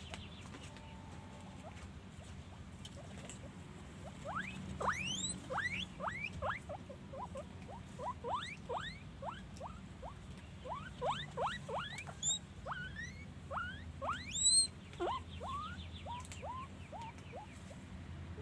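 Guinea pig wheeking: a quick run of short, sharply rising squeals, about two a second, starting about four seconds in and dying away shortly before the end.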